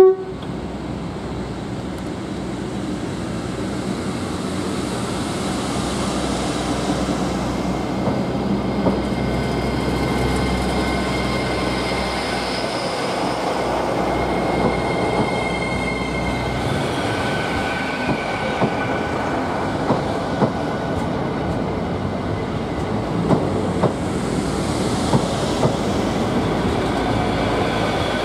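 Hitachi Class 800 Azuma bi-mode train moving past, running on its underfloor diesel engines, with a steady rumble and a whine of several tones that grows slowly louder. Sharp clicks of wheels over rail joints come in the second half.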